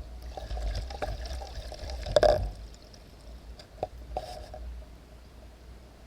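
Kayak paddle stroking through the water, splashing and dripping, with a sharp knock a little over two seconds in and two lighter clicks a couple of seconds later.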